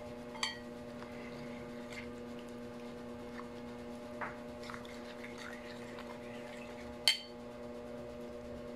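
A metal spoon stirring flour-and-water batter in a ceramic bowl, giving a few light clinks against the bowl. The loudest clink, with a short ring, comes about seven seconds in. A steady low electrical hum runs underneath.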